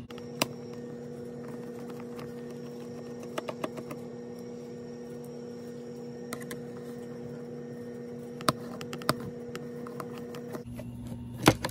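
Scattered sharp little clicks of a screwdriver working small screws out of a plastic servo mount, a few at a time with gaps between, the loudest near the end, over a steady low hum.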